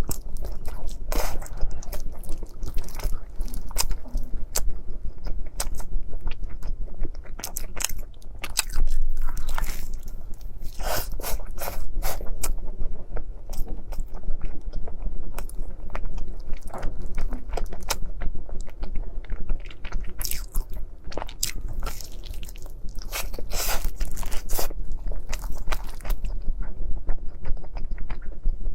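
Close-miked eating sounds of a dessert mukbang: repeated bites and chewing, with many sharp, irregular mouth clicks and crackles.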